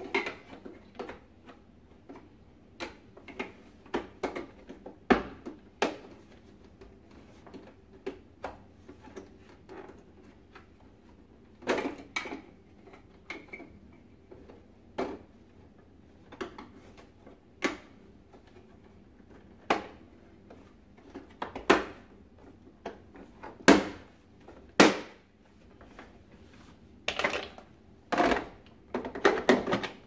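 Hard plastic parts of a Philips FC9924 vacuum cleaner's housing clicking, knocking and snapping as they are handled and fitted together by hand. The strokes are scattered and irregular, with the loudest knocks in the second half.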